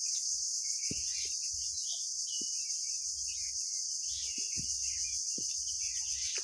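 Steady high-pitched chorus of insects, crickets or cicadas, shrilling without a break, with a few faint soft knocks scattered through it.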